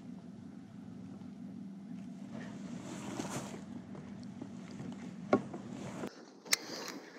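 Kayak out on the water: water and wind noise over a steady low hum, with two swishes from the paddle and a sharp knock about five seconds in. The hum cuts off suddenly about six seconds in, followed by a few clicks.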